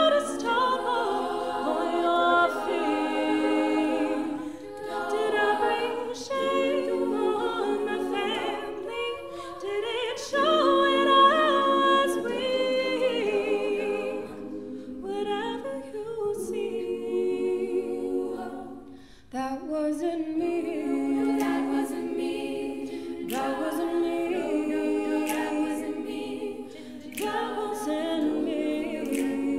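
All-female a cappella group singing close vocal harmony, a solo voice leading over the backing voices. The voices move in phrases of a few seconds, drop away briefly a little past halfway and then come back in together.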